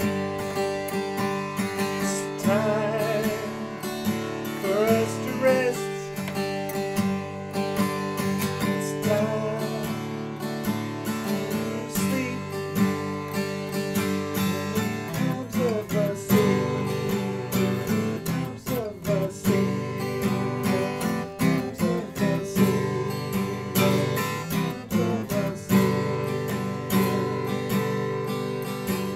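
A man singing a gospel-flavoured folk song to his own acoustic guitar accompaniment, the guitar playing throughout and the voice coming in and out between phrases.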